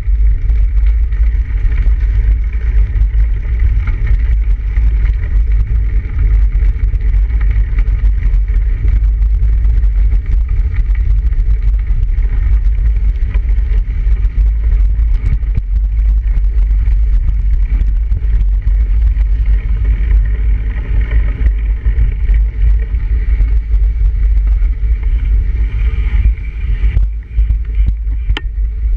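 Wind buffeting the microphone of a handlebar-mounted camera on a moving bicycle: a loud, steady low rumble, with tyre noise from the snowy road underneath.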